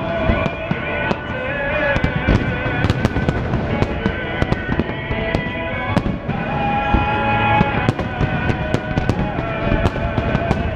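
Aerial fireworks going off in quick succession, many sharp bangs and crackles, over music with sustained melodic lines.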